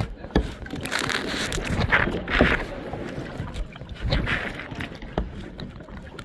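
Kayak paddle strokes dipping and splashing through the water, with swishing surges and a few sharp knocks.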